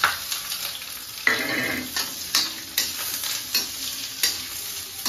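Chopped onion and garlic dropped into hot oil in an iron kadai, frying with a steady sizzle. A metal spatula stirs them, scraping and knocking against the pan several times.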